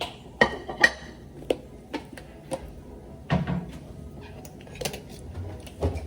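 Crockery clattering as a plate is taken out from among other dishes: a string of sharp clinks and knocks, about eight, the first few close together with a short ring.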